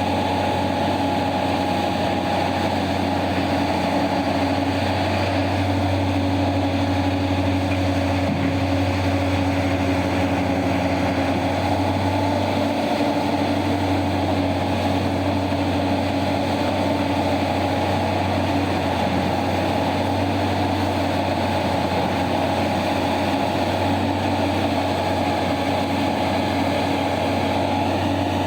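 Diesel engine of a large mining machine running steadily, with a constant low hum and a thin steady whine above it.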